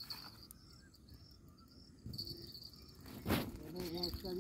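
Insects, likely crickets, chirping in a steady high pulsing trill. A short, loud rush of noise breaks in about three seconds in.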